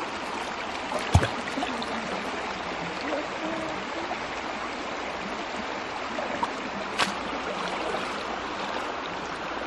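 Shallow river water sloshing and draining out of bamboo-framed scoop nets as they are dipped and shaken to sieve silt for small fish: a steady splashing hiss. A sharp knock comes about a second in, and a click comes around seven seconds in.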